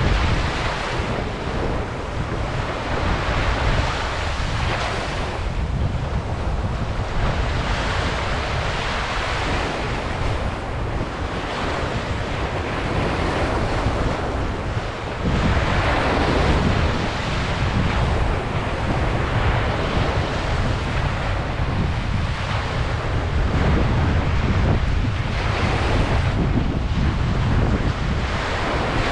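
Ocean waves breaking and washing up a beach, the surf swelling and easing every few seconds, with wind rumbling on the microphone.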